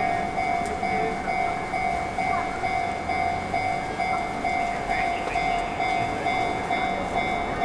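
Japanese level crossing warning bell ringing without a break, a steady high ding repeated about twice a second, with a train's running noise underneath.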